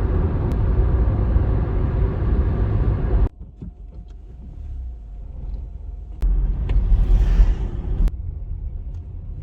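Car on the move: a steady low rumble of engine and road noise, cutting off suddenly about three seconds in to a quieter stretch, then coming back louder for about two seconds near the end.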